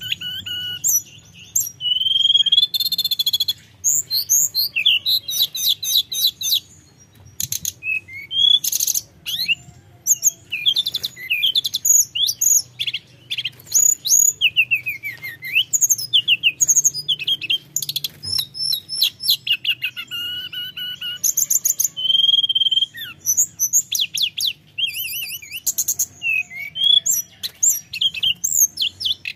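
A caged hill blue flycatcher singing vigorously in a fast, varied stream of whistled slurs, chirps and trills, broken by short rattling buzzes.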